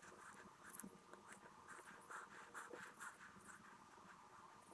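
Faint, irregular small clicks of steel ball bearings being picked up and set one by one into the greased bearing race of a 7-speed bicycle freewheel.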